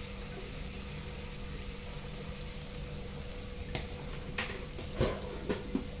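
Water spinach and basil sizzling in a pan after a little water has been added, a steady hiss. In the second half a spatula knocks against the pan several times as stirring begins.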